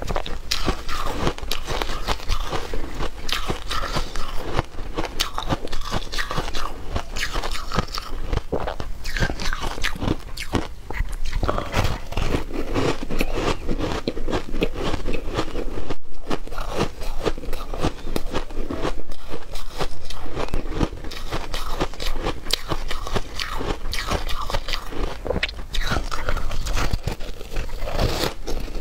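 Matcha-dusted ice being bitten and crunched between the teeth, with chewing: a dense run of crisp cracks that barely lets up.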